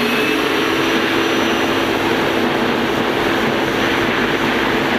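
Gas turbine of a racing jet boat running steadily at high speed, heard from on board: a loud, even rush with several steady low tones and a faint high whine on top.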